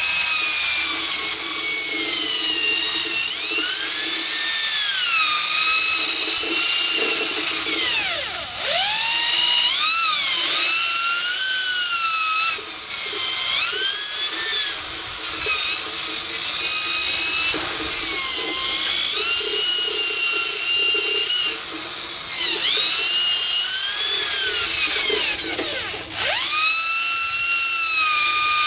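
Handheld rotary tool spinning a stiff nylon abrasive brush against the combustion chambers of an aluminum air-cooled Volkswagen cylinder head, scrubbing off carbon. A high whine whose pitch wavers as the brush is pressed and eased, with a rough scrubbing underneath. Twice the whine drops sharply and climbs back up: around nine seconds in and a couple of seconds before the end.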